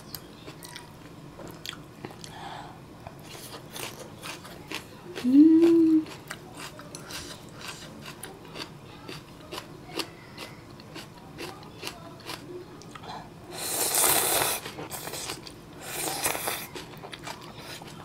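Close-up mouth sounds of a person eating ramen noodles: many small wet chewing clicks, a short rising hum-like tone about five seconds in, and two loud breathy bursts of noodle slurping near the end.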